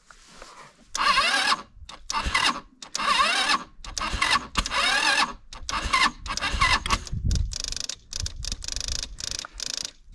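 ATV's electric starter cranking in a string of short bursts, the later ones shorter and quicker, with the engine not catching on a freshly swapped-in battery.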